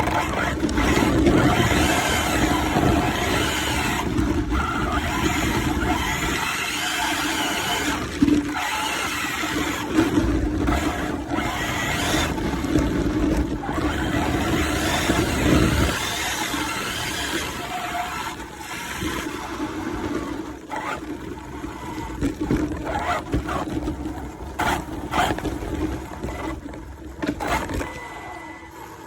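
Arrma Infraction RC car's electric motor whining, rising and falling in pitch again and again as it accelerates and slows, over a steady hiss of tyres spraying through water on a rain-soaked surface.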